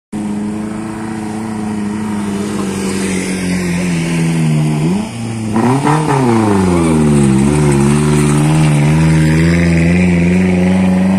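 Engines of small vehicles climbing a steep hill, running loud and steady. About six seconds in, the engine note swoops up and back down as one vehicle comes close past, then settles into a steady, slightly lower drone.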